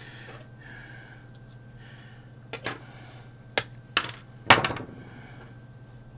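Small parts and tools handled on a workbench: soft rustling, then about five sharp clicks and clacks over two seconds, the last the loudest.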